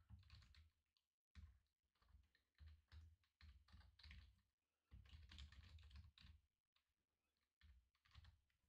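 Faint computer keyboard typing in several short bursts of keystrokes, with brief pauses between them.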